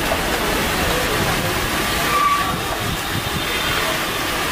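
Steady noisy background din of a busy roadside food stall, with faint voices mixed in.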